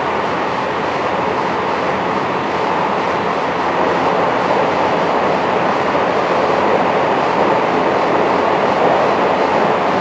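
Running noise inside the motor car of a JR West 223 series 1000-subseries electric train (KuMoHa 223-1008): a steady rush of wheels on rail and running gear, growing a little louder from about four seconds in.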